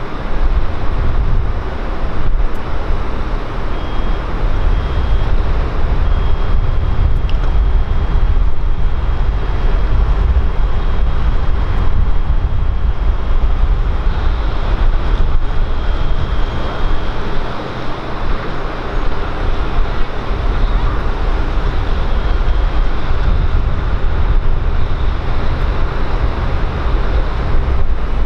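Jet airliner engines running: a loud, steady low rumble with a faint high whine over it for much of the time.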